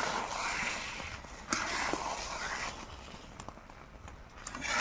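Spatula stirring and scraping thick, sticky jujube pickle in a metal wok, in a few scraping strokes with small clicks.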